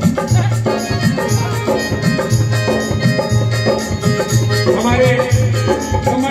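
Live Indian folk song through loudspeakers: electronic organ with a dholak drum and small percussion keeping a steady beat of about two low thumps a second. Singing comes in near the end.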